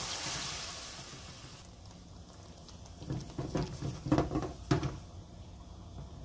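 Water poured into hot oil and fried spice paste in a pan, sizzling at the start, with the hiss dying away over the first second or so. From about three to five seconds in, a wooden spatula stirs through the simmering masala, with a few knocks and scrapes against the pan.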